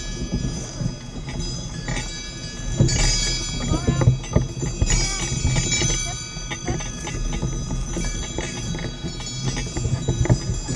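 Sleigh bells on a Shetland pony's harness jingling steadily as the pony pulls a sled through snow, with scattered clicks of harness hardware over a low rumble from the moving sled.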